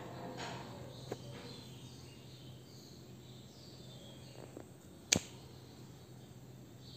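Quiet room tone with a steady low hum, broken by a faint click about a second in and a single sharp click about five seconds in.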